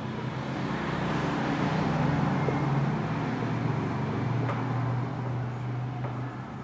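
A passing motor vehicle's engine hum, swelling to a peak about two seconds in and then fading, its pitch dropping slightly as it goes.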